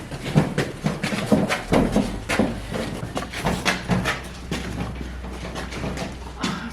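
Irregular knocks, bumps and scrapes of a heavy wrapped item being handled and moved, with a low steady hum from about two seconds in until near the end.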